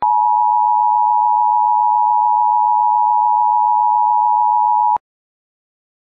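Emergency Alert System attention signal: two steady tones sounded together as one harsh drone, held for about five seconds and then cut off abruptly.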